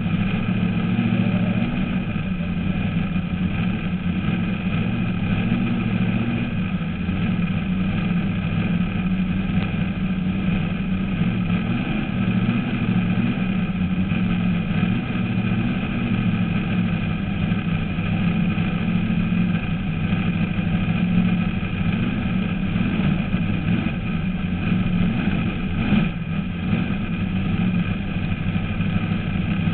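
Supercharged alcohol-burning engine of a 1937 Fiat fuel altered drag car idling steadily, heard from inside the cockpit.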